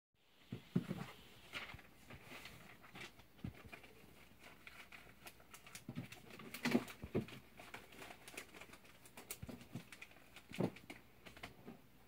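Quiet handling noise of an aluminum-handled folding knife turned over in the hand: scattered light clicks and rubs, with a few louder knocks about a second in, around seven seconds in and near the end.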